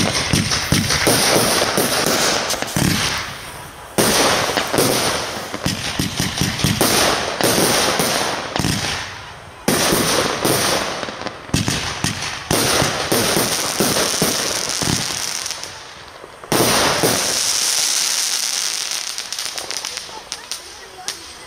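Aerial fireworks bursting overhead, a loud report every few seconds, about five in all. Each burst is followed by a dense crackling that fades away, and the last dies out over the final few seconds.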